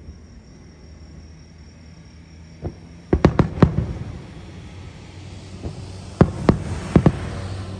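Aerial fireworks shells bursting. A single bang comes a little before three seconds in, then a rapid run of about five bangs, then several more bangs spaced about half a second apart near the end, over a low steady rumble.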